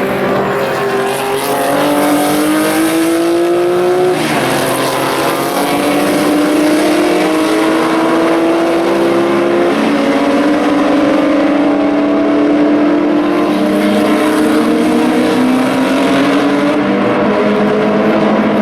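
Historic racing car engines accelerating hard at full throttle, their pitch climbing and then dropping back at each upshift, about 4 and 10 seconds in, with more than one car's engine heard together.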